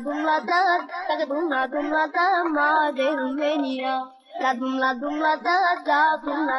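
A high-pitched voice singing a wavering melody without instruments or drums, pausing briefly about four seconds in.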